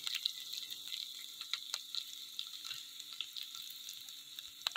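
Chopped garlic sizzling in a little hot oil in a metal karahi, a steady hiss with scattered small crackles and pops.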